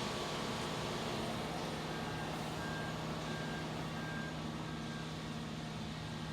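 A heavy truck's diesel engine running steadily, with a back-up alarm beeping about six times from about two seconds in to near five seconds, as a concrete truck on the pour reverses.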